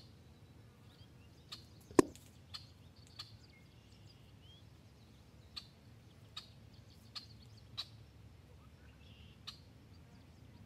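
A single sharp crack about two seconds in, then a scattering of faint short clicks and a few faint bird chirps over a quiet outdoor background.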